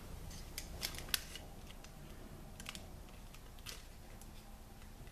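Light, scattered clicks and taps of small paper-craft supplies being handled on a tabletop, about seven over the first four seconds, as a tiny adhesive pearl embellishment is reached for with the scissor tips.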